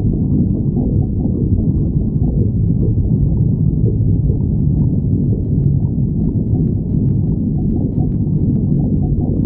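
Stomach growling: continuous low rumbling and gurgling.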